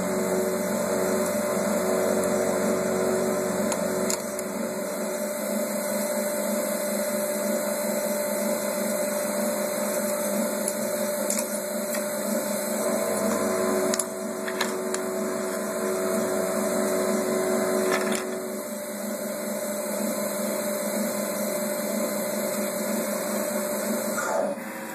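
Steady electrical hum over a constant hiss, with a few light clicks and knocks of parts being handled.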